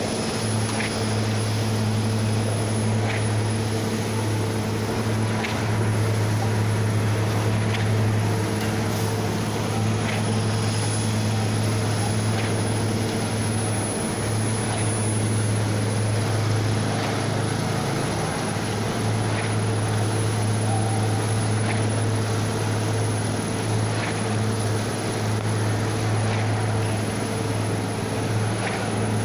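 Small engine on a wheeled concrete-pour machine running steadily, a constant low hum, with faint taps every couple of seconds.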